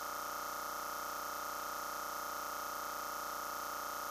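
A steady, unchanging electronic tone: one held pitch with many overtones, at a constant level. The grill's sizzle and the flames are not heard.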